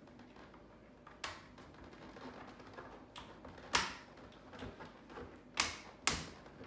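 Sharp plastic clicks and snaps from the side pivot mechanism of a Touratech Aventuro 2 motorcycle helmet as a part is pushed down over its pin and snapped into place, about four clicks with the loudest near the middle and two close together near the end.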